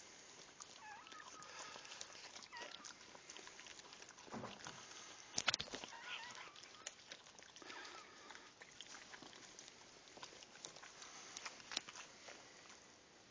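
Dachshund mother licking and nuzzling a newborn puppy: faint wet licking and slurping clicks, with a sharper cluster of them about five seconds in. A few thin, wavering high squeaks come through, the cries of the newborn pup.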